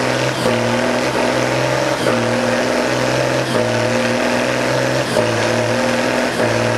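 M35A2 deuce-and-a-half's multifuel diesel engine working hard under throttle as the six-wheel truck crawls up out of a muddy rut, a steady loud note that shifts slightly in pitch every second or so.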